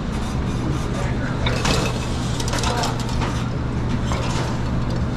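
Steady machine hum of pizzeria kitchen equipment, with scattered clicks and clatter of work over it.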